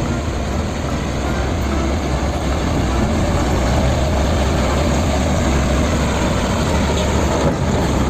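Hino 500 concrete mixer truck's diesel engine running steadily as the truck drives slowly past, a deep, even engine sound with no change in pace.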